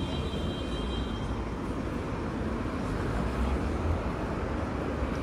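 Steady rumble of city street traffic, with a thin high whine during the first second or so.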